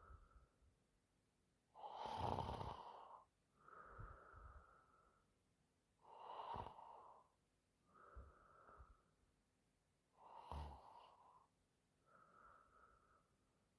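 A sleeping woman snoring: three slow breaths about four seconds apart, each a rough snore followed by a softer, breathy sound. The first snore, about two seconds in, is the loudest.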